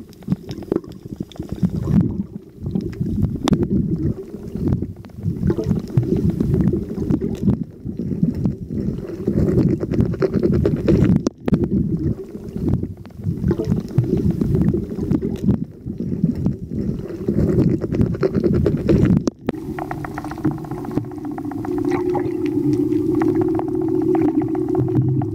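Muffled underwater rumbling and gurgling picked up by an action camera during a spearfishing dive, with scattered small clicks. About nineteen seconds in it changes abruptly to a steadier hum with a few held tones.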